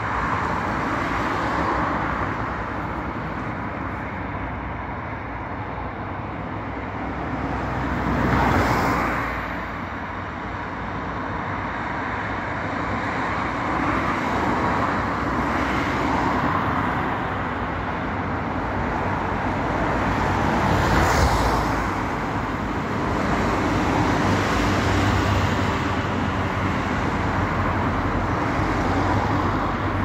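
Road traffic: cars passing along the street, a steady hum of tyres and engines that swells twice as vehicles go by close, about nine seconds in and again about twenty-one seconds in.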